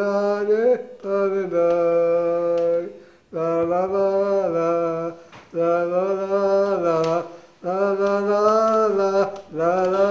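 A man singing in a slow chant: long held notes at a near-level pitch, about five phrases of roughly two seconds each, with short breaths between them.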